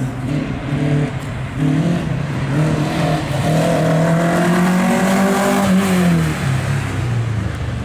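A Toyota Starlet slalom car's four-cylinder engine revving hard through the cones, its pitch dipping and climbing between turns and then rising steadily as the car comes on. About six seconds in, the pitch falls away sharply as the car passes close by.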